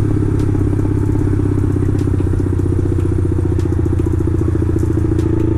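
Motorcycle engine idling steadily through its exhaust, with a few faint light ticks.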